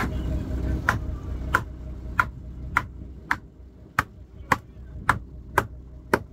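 A large knife chopping a murrel fish fillet into pieces on a wooden board: about ten sharp, even strokes, roughly two a second, over a steady low hum.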